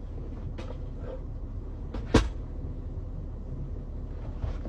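A steady low rumble with one sharp knock about two seconds in, a short thunk of something being shut or set down.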